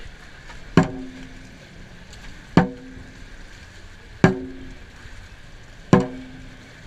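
Dragon boat drum struck in a slow, steady beat: four strikes about 1.7 seconds apart, each ringing briefly. It sets the paddlers' stroke rate.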